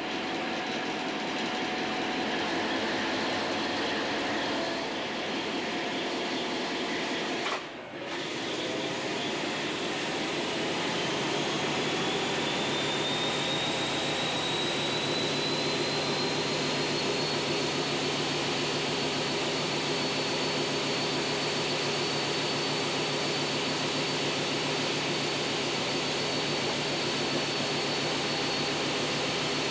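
Hastings diesel-electric multiple unit heard from the driving cab, its diesel engine running under power with a steady drone. After a brief break about eight seconds in, a high whine rises in pitch and then holds steady as the train picks up speed.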